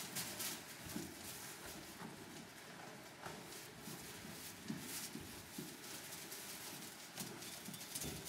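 Irregular rustling of straw bedding and soft thumps of small lambs' hooves as Cormo lambs walk and hop about the pen.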